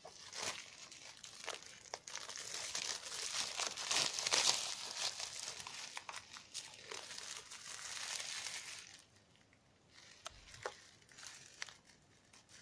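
Plastic shrink-wrap on a Blu-ray box set being torn and crumpled off by hand, a crinkling crackle that stops about nine seconds in, followed by a few light clicks and taps.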